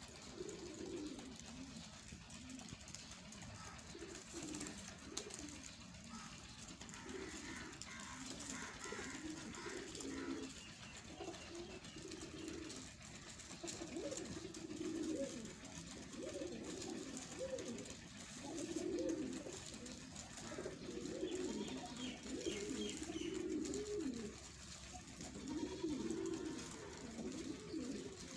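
A flock of domestic high-flying pigeons cooing, many low, wavering coos repeating and overlapping one another without a break.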